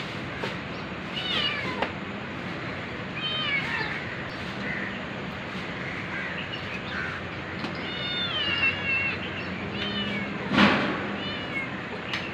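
A weak, sick kitten mewing in several short bouts of high-pitched calls. About ten seconds in there is a brief, louder noise.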